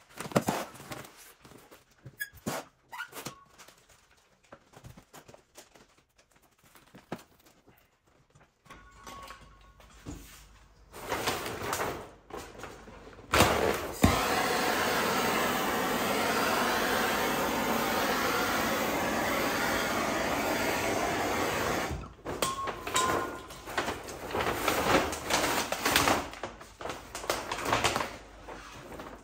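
Vinyl wrap film crinkling and rubbing in scattered short bursts as it is worked by hand over a car fender. About fourteen seconds in, a heat gun blows steadily for about eight seconds to soften the vinyl, and is the loudest sound. It then stops and the handling noises resume.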